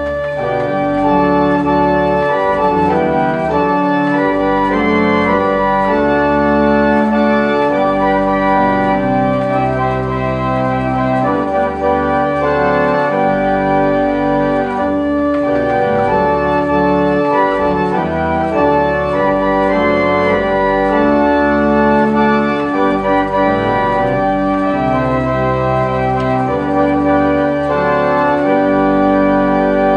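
A 100-year-old pipe organ playing a slow piece of sustained chords over deep bass notes, the chords changing every second or two.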